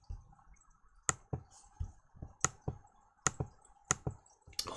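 About a dozen sharp computer clicks and key taps, unevenly spaced, as presentation slides are clicked through; the slides are giving trouble.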